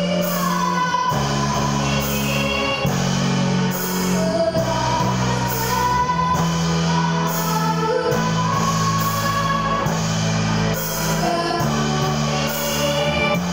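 Live band music: a young girl sings lead in a high, shrill voice, holding long notes over keyboard and electric guitar accompaniment.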